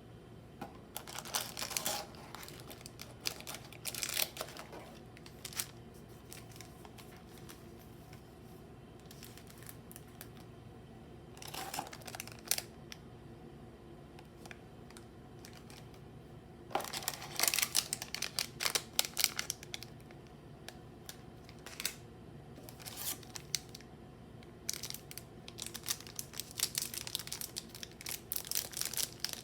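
Pokémon booster-pack foil wrappers crinkling and tearing in several bursts of handling, with short clicks and taps in between.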